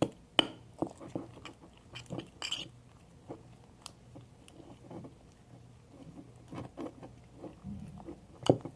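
Sticky glue slime being kneaded and pulled by hand, giving irregular wet clicks and squelchy pops, with a sharper pop at the start and another near the end.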